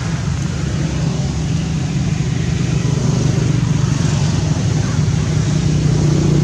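A steady low engine drone running without a break, with a hiss over it.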